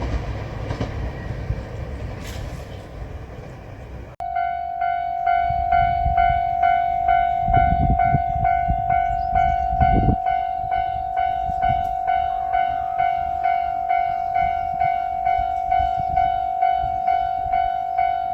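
A limited express train runs past a level crossing, its rumble and wheel noise fading over the first four seconds. Then, after an abrupt cut, the level-crossing alarm rings steadily at a little under two strikes a second.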